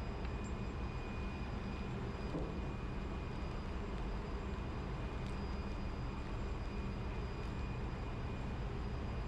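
Steady low machinery drone with faint, steady high-pitched whines over it, typical of a ship's engine room, with a few faint crinkles and ticks as small parts are unwrapped from plastic and paper.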